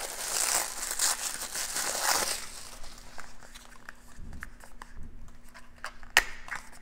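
Wrapping crinkling and tearing as a gift-wrapped nail polish bottle is unwrapped by hand, dense at first, then softer rustles and small ticks, with one sharp click about six seconds in.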